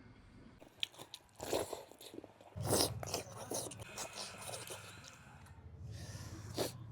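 Close-miked biting and crunching of food, in a few sharp bursts with chewing between them.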